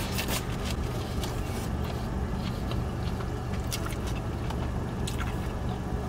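Steady low hum of a car idling, heard inside the cabin, with a few soft clicks of chewing scattered through it.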